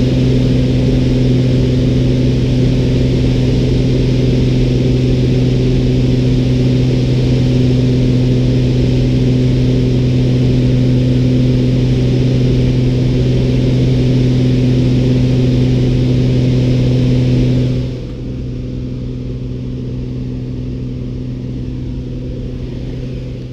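Single-engine light aircraft's piston engine and propeller running at full power on take-off and climb, a steady drone with a strong low hum. About three quarters of the way through the sound drops and becomes duller, the same drone heard from inside the cabin.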